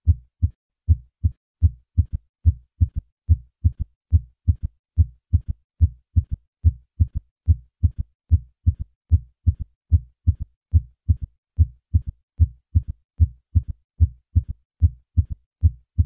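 Heartbeat: a steady run of low, dull lub-dub thuds. After the first few plain beats, a third heart sound, a faint low thud in early diastole just after the second sound, follows each beat, giving a galloping rhythm. In those over 40 this usually signals decreased left ventricular function, though in children and young adults it can be normal.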